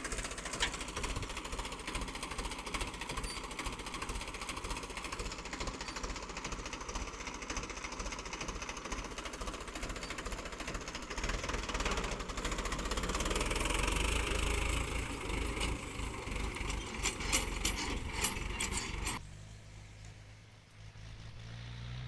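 Diesel engine of a JCB 3DX backhoe loader running with a fast knocking beat, growing louder partway through. Several sharp metal clanks come near the end, just before the sound drops abruptly to a quieter low engine hum.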